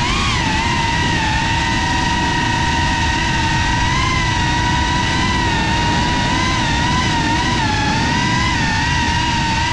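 FPV quadcopter's brushless motors and propellers whining steadily in flight, the pitch wavering slightly up and down with the throttle.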